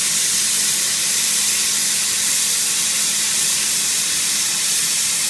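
DigiCut CNC cutting machine's torch cutting through steel plate: a loud, steady hiss, with a faint steady hum underneath.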